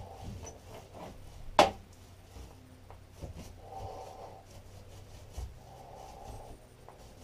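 Paintbrush scrubbing and dabbing gel coat onto a fibreglass cabin floor, with one sharp knock about one and a half seconds in and slow breaths every couple of seconds.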